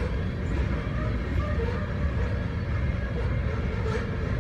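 Cars of a CN coal train rolling past a grade crossing: a steady rumble of steel wheels on rail.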